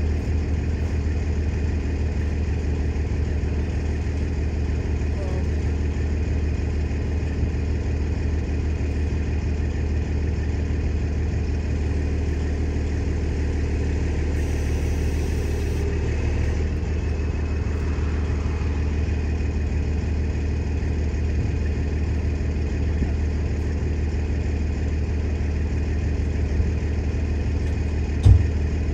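Heavy wrecker's diesel engine running at a steady low drone, with one sharp thump near the end.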